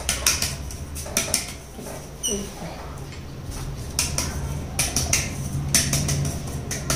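An aluminium cake tin being tapped and knocked by hand in short clusters of quick taps while flour is shaken around inside it to dust the greased tin. A brief high squeak comes about two seconds in, over a faint steady low hum.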